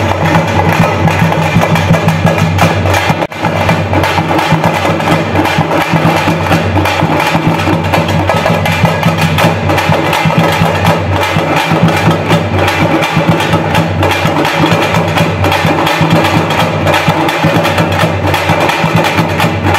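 Thappattam drumming: a group of parai frame drums beaten with sticks in a fast, dense, driving rhythm.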